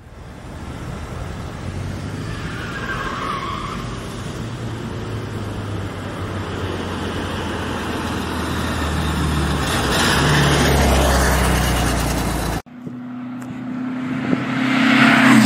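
Air-cooled VW Beetle engine running as the car drives across a paved lot, growing louder to about ten seconds in. The sound cuts off suddenly about twelve and a half seconds in, and a different engine's steady drone follows, rising near the end.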